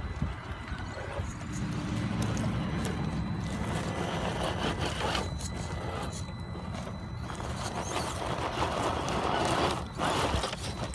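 Tamiya CC-01 RC crawler's electric motor and gear drive whining steadily under load as it climbs loose shale, over the crunching and scraping of its tyres and stones on rock. The drive eases briefly near the end.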